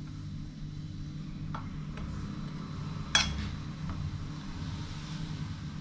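Steel spoon stirring dry gram flour in a ceramic bowl: soft scrapes and faint taps, with one sharp clink of spoon on bowl about three seconds in. A steady low hum runs underneath.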